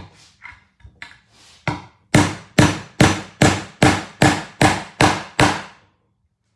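Claw hammer striking the head of a steel carriage bolt seated in a Tune-o-Matic bridge stud well, driving the metal well into a guitar body: a few light taps, then about nine hard blows in a steady rhythm of roughly two and a half a second, each ringing briefly.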